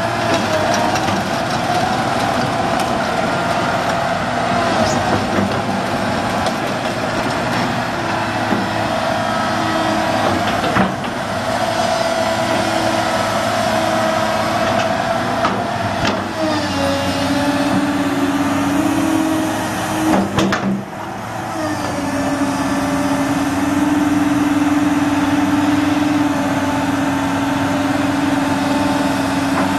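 1997 Komatsu PC220LC-6LE long-reach excavator working: its diesel engine runs under load with a whining hydraulic pump whose pitch shifts a few times as the boom and arm move. A few sharp clicks stand out over the running machine.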